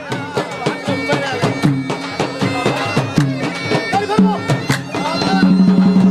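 Saraiki folk instrumental music (saz): a wavering, ornamented melody over frequent drum strokes, with a low note held loudly near the end.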